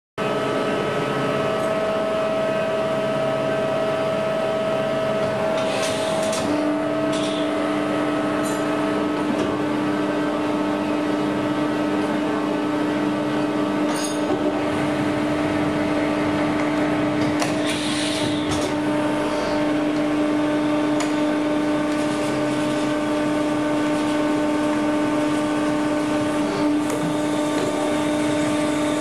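Hardinge Superslant CNC lathe running a machining cycle on its Siemens spindle and axis drives and motors: a steady whine made of several constant tones over a noise bed. A lower tone joins about six seconds in, and there are a few brief hissing bursts.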